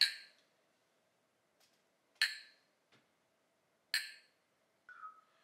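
Porcelain cups clinking together in a toast, three times about two seconds apart, each clink with a short bright ring.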